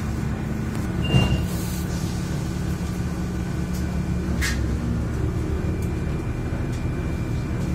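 SA134 diesel railbus heard from inside the passenger compartment, its engine running steadily at low speed as the railcar creeps along, with a couple of short clicks about a second in and again a few seconds later.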